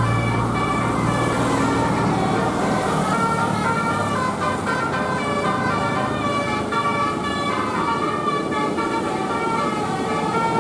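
Bus 'telolet basuri' musical horn playing a tune of short notes that step up and down in pitch, over a low engine hum that fades out about four seconds in.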